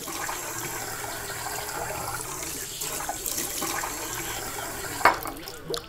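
Steady rush of running water, like a tap running into a sink, with a sharp clink about five seconds in.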